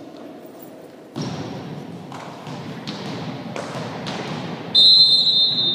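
A few dull thumps of a volleyball bouncing on the hall floor. About 4.7 s in, a referee's whistle blows one long shrill note, the signal to serve.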